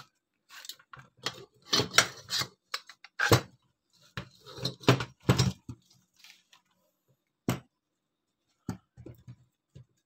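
Parts of a disassembled washing-machine spin-dryer motor, its wound stator and metal housing, being handled and set down on a bench: a busy run of metal clicks and knocks for about the first six seconds, then a few isolated clicks near the end.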